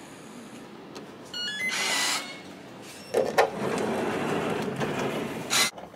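A capsule hotel pod's key-card reader gives a quick rising run of electronic beeps, followed by a brief rushing noise. About three seconds in there is a clunk, then the pod's door slides open with a steady mechanical noise lasting a couple of seconds.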